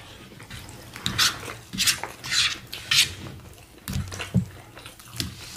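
Close-miked eating sounds: chewing and mouth noises with forks scraping and tapping on plates, in a string of short hissy bursts.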